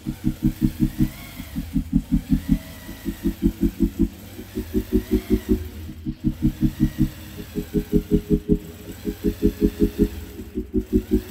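Longarm quilting machine stitching free-motion, its needle going in a quick, even rhythm of about seven strokes a second, in runs of a second or two broken by short pauses.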